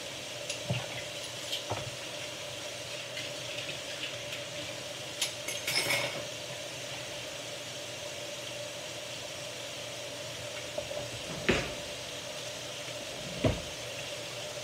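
Dishes and utensils clinking and knocking now and then over a steady low hum: a few light clinks, a short clatter about six seconds in, and two sharper knocks near the end.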